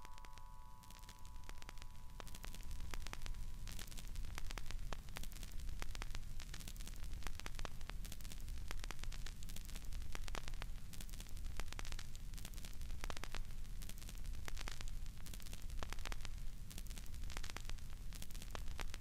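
Crackling static: a dense scatter of sharp clicks and pops over a steady low hum and hiss.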